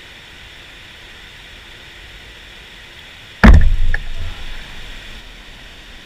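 Steady rush of a mountain stream. A little past halfway comes one loud sudden thump, heavy in the low end, dying away over about a second, with a lighter knock about half a second after it.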